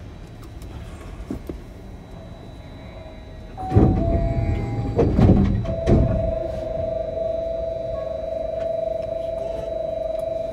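Sliding passenger doors of an Osaka Monorail 1000 series car knocking and thudding in their tracks about four seconds in. Then a steady two-note electronic door-warning tone sounds for about five seconds and cuts off suddenly.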